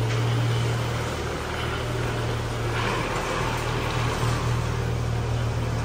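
Car engine idling steadily with a low, even hum. There is a brief rush of noise about three seconds in.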